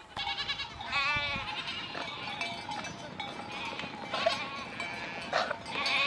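Herd of goats bleating, several calls overlapping, the clearest a long wavering bleat about a second in.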